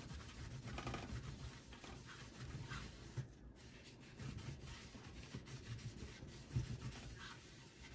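Paper napkin rubbing over the CPU's metal lid, wiping off the old thermal compound in faint, irregular scrubbing strokes.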